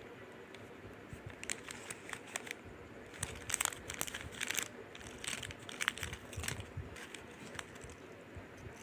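Clear plastic jewellery packets and wrapping crinkling as fingers handle them: an irregular run of small crackles and rustles.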